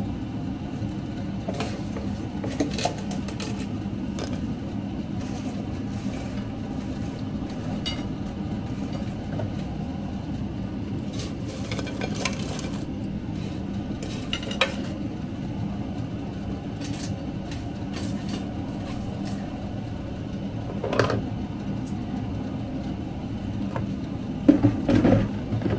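Dishes and cutlery clinking now and then, with a few clinks close together near the end, over a steady low mechanical hum.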